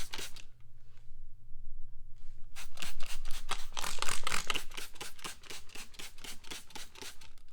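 Soapy water being worked onto a tire valve stem to check for air leaks, in quick scratchy strokes at about five a second, pausing for about two seconds near the start.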